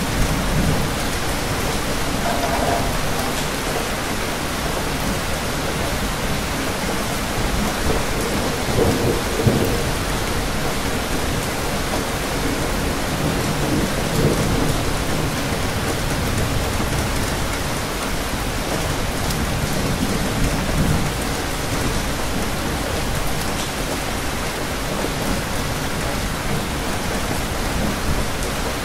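Steady, dense rain falling, a continuous hiss. Several low rumbles swell and fade beneath it, the strongest about nine seconds in.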